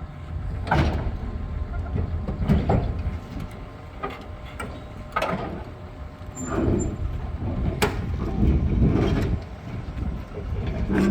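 Heavy machinery diesel engine running with a low rumble, with irregular metallic clanks and knocks, four of them sharp, about a second in, two and a half seconds in, five seconds in and near eight seconds in.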